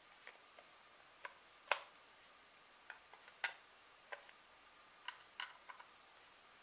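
Scattered, irregular sharp clicks and taps from a small plastic controller box being handled and turned over, with two louder knocks about one and a half and three and a half seconds in.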